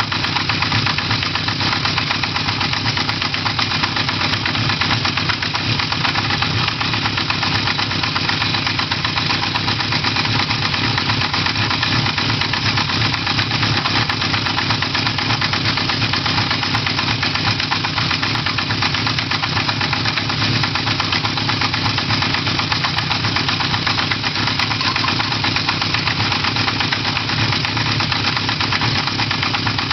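Honda CB1100F air-cooled inline-four engine idling steadily, with a rapid, even ticking running through it: the abnormal engine noise the owner is trying to trace.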